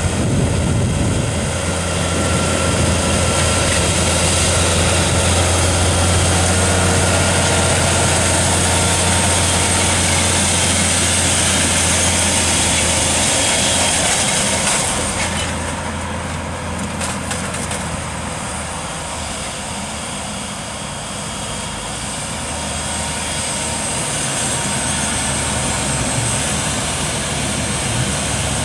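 Fendt 930 tractor's six-cylinder diesel engine running steadily under load while pulling a seed drill, with a low hum. The sound drops a little about halfway through and builds again towards the end as the tractor comes closer.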